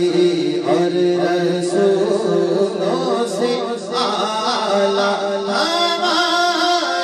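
A man singing an Urdu naat into a microphone, drawing out long wavering notes without clear words.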